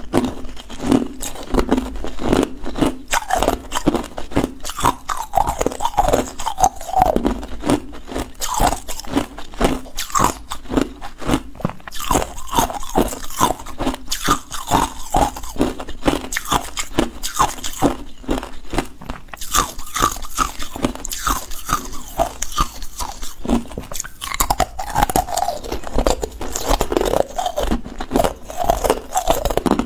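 Close-miked crunching of hard ice cubes being bitten and chewed: dense, rapid cracks and grinding as the ice breaks between the teeth.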